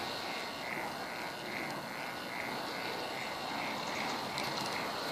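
K'nex spirograph machine running, its plastic gears and rotating arms making a steady whir with a soft pulse about two to three times a second.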